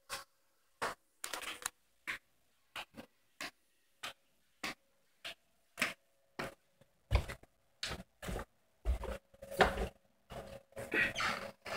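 Footsteps climbing a carpeted wooden staircase: short dull knocks about every half second to second, coming closer together and louder near the end.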